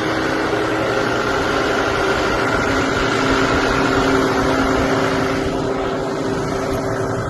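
Case TR340B compact track loader's diesel engine running steadily, with a steady whine held over the engine noise; the higher hiss eases off about five and a half seconds in.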